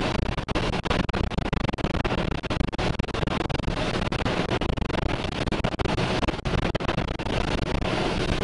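Tornado wind and rain buffeting the vehicle, heard from inside the cab: a dense, unbroken rush of noise with rapid, irregular hits of rain and debris striking the body and windshield.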